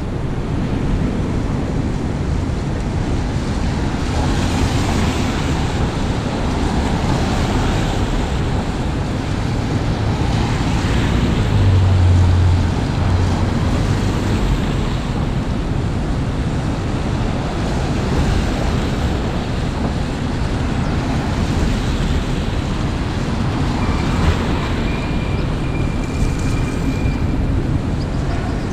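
City street traffic on wet pavement: cars and trucks passing with tyres hissing on the wet road over a steady low rumble. A heavier vehicle's rumble swells loudest about twelve seconds in, and a thin high whine sounds for a few seconds near the end.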